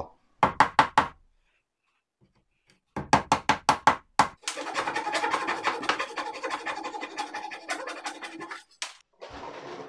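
A claw hammer lightly tapping wooden plugs into screw holes in a hardwood chair frame: four taps, a pause, then a quick run of taps. Then a Japanese flush-cut saw rasps back and forth for about four seconds, trimming the plugs flush.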